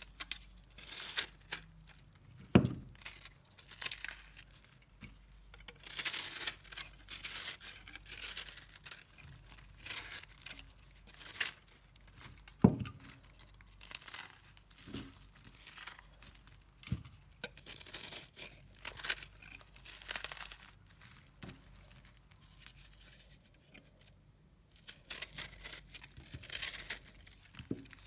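Puffed-up, microwave-dried soap being crushed and broken apart in a series of crisp crackling crunches with short pauses between them. Two sharp thuds stand out, one about two and a half seconds in and a louder one near the middle.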